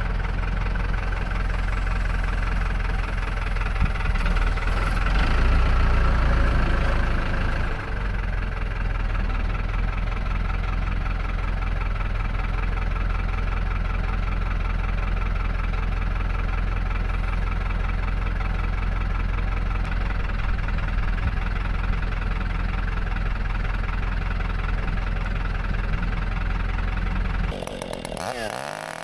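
Large two-stroke chainsaw on a chainsaw mill running steadily under load, cutting a slab from an ash log. Near the end the steady cutting sound stops and the engine note sweeps up and down.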